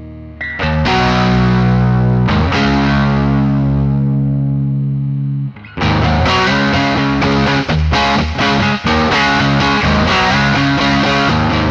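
Electric guitar played through overdrive: chords struck and left to ring for a few seconds, then a brief break and a run of short, rhythmic chord strums.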